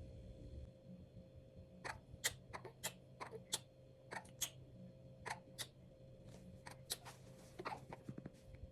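Hand patting a newborn's back to bring up a burp: light, irregular pats, about two a second, starting about two seconds in.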